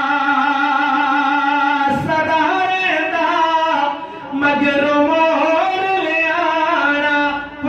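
A man singing a naat into a microphone, without instruments. He holds a long, steady note that ends about two seconds in, then sings a wavering, ornamented line, pausing briefly for breath about four seconds in and again near the end.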